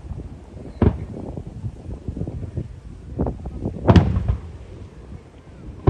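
Aerial fireworks shells bursting: a sharp bang about a second in, a few lighter pops, then the loudest bursts about four seconds in, each followed by a short rumble of echo.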